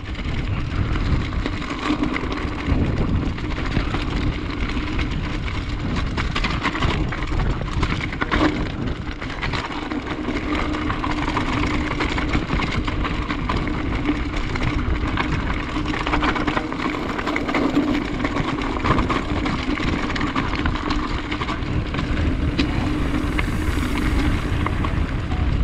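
Mountain bike running fast on a gravel track: tyre rumble and a steady rattle of small knocks from the bike, with wind buffeting the action camera's microphone.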